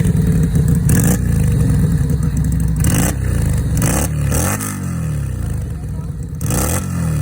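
FKM Victorino 250i motorcycle engine running on its stock exhaust and being blipped several times, the revs falling back toward idle after each blip.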